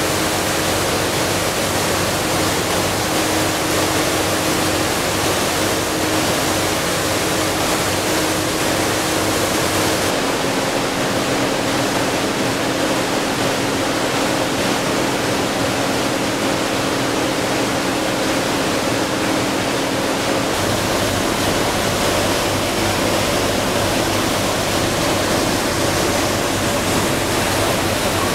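Steady rushing water noise from a moving cruise boat's wake and hull, with a faint steady engine hum underneath. The hum shifts a little lower about ten seconds in and back again about twenty seconds in.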